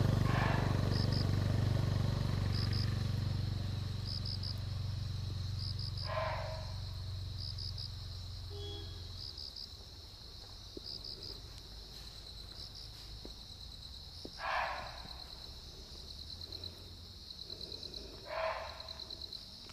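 Indian muntjac (barking deer, kakar) giving three short single barks several seconds apart, over steady pulsing cricket chirps. A low engine rumble at the start fades away in the first nine seconds or so.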